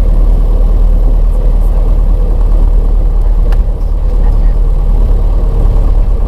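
Light aircraft's engine and propeller running steadily, heard from inside the cabin as the plane rolls along the runway.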